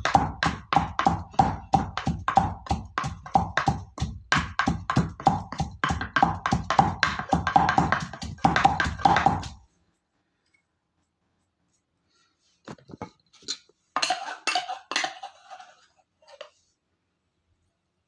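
Fresh ginger being pounded, a pestle striking about four times a second with a ringing note, to crush out its juice for a second or third pressing. The pounding stops about ten seconds in; after a pause come a few brief knocks and rustling of handling.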